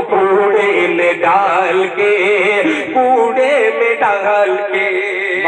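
A man's voice singing Urdu verse in a drawn-out, wavering melody, amplified through a microphone and loudspeakers.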